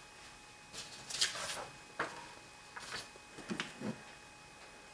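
Faint handling noise of a plastic-framed quadcopter being moved on a wooden table: a few light clicks and rustles of plastic and wires, with one sharper click about two seconds in.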